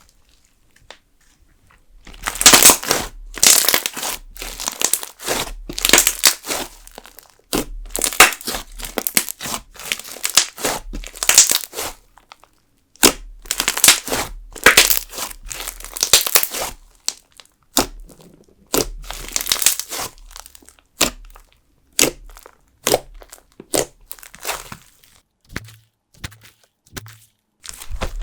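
Jelly slime mixed with sugar beads being squeezed and pressed with both hands, giving crackly, crunchy clicks and small pops in runs of a second or two with short pauses between.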